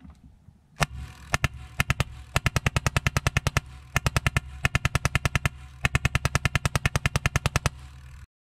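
Sig Sauer Virtus .22-calibre semi-automatic HPA air rifle firing: one shot, then rapid strings of shots at about eight a second with short pauses, over a low steady hum. The sound cuts off suddenly near the end.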